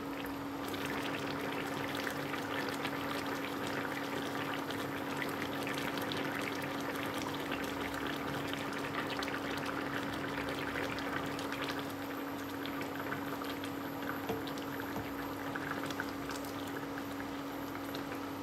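Beef rendang sauce simmering and bubbling in a non-stick frying pan, stirred with a wooden spoon, with coconut cream poured in from a carton about halfway through. A steady hum runs underneath.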